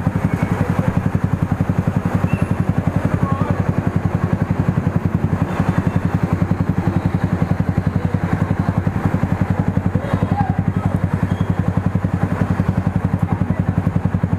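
Motorcycle engine with an aftermarket muffler idling steadily, its exhaust putting out an even, rapid beat of pulses.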